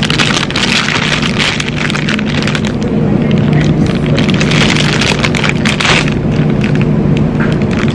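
Close handling noise: a plastic produce bag of oranges crinkles and rustles right against the microphone, with dense crackling that thins out about six seconds in. A steady low hum runs underneath.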